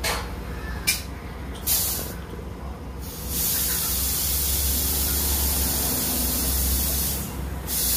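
Compressed air hissing from a tyre-inflator hose into a scooter tyre on a tyre-changing machine, as the newly fitted tyre is inflated. A few short blasts come first, then a long steady hiss of about four seconds, a brief pause, and the hiss starts again at the end.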